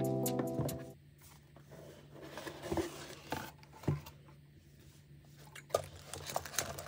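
Background electronic music fading out in the first second, then faint handling sounds: soft rustles and a few light taps and clicks as sticker sheets and decorating supplies are rummaged through in a storage box.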